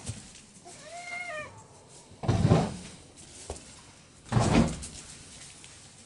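A puppy's short high-pitched whine, rising then falling, about a second in. It is followed by two louder rough, noisy sounds of about half a second each, some two seconds apart.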